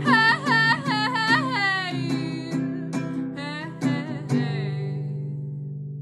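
Acoustic guitar strummed to close a folk-punk song, with a high, wavering melody line over it in the first couple of seconds. A final chord is struck about four seconds in and left to ring out, slowly fading.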